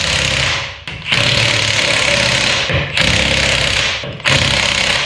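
Impact wrench running in four bursts of about one to one and a half seconds each, its hammering mechanism rattling as it drives fasteners tight.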